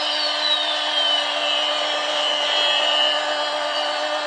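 Battery-powered toy airplane whirring steadily from its small motor, with a thin high whistle that falls in pitch over the first three seconds.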